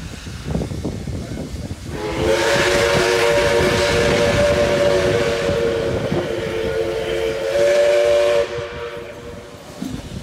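Steam locomotive 5917's whistle blowing one long, steady chord of several notes with a hiss of steam, starting about two seconds in and cutting off sharply near the end. Underneath is the low rumble of the moving train.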